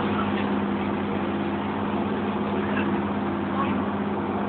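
Passenger boat's engine running at a steady speed, a constant low drone with a strong hum, heard from inside the passenger cabin.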